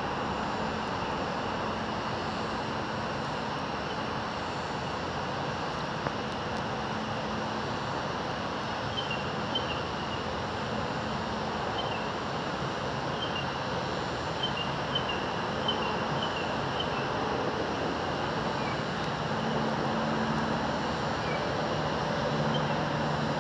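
A steady outdoor rushing rumble, with a few short high chirps in the middle stretch.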